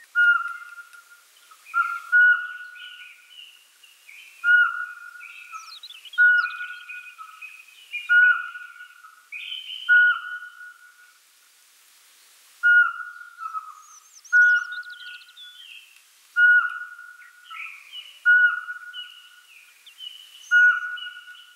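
Pygmy owl singing: a steady series of single whistled notes about every two seconds, with a brief pause about halfway through.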